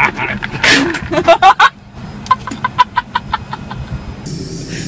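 A man laughing in quick, choppy bursts, with a short breathy sputter under a second in and a faster run of short laugh pulses a little past the middle.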